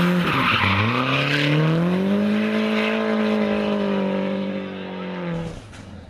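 Ford Escort RS Cosworth rally car's turbocharged four-cylinder engine powering out of a hairpin: the revs dip briefly under a second in, then climb steadily for about two seconds and hold high before the sound drops away about five seconds in.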